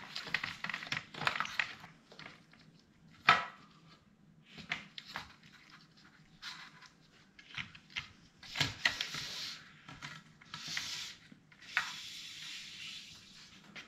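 Bottom track of a pleated caravan blind being slid off the fly-screen mesh: rustling and scraping with scattered clicks, a sharp click about three seconds in, and several longer sliding scrapes in the second half.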